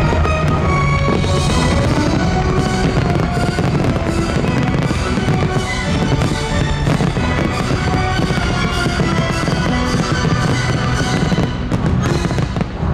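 Many fireworks bursting and crackling over the show's loud music soundtrack.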